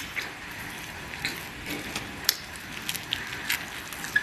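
A handful of small, irregular clicks and taps over a low steady hiss, the sharpest a little past halfway.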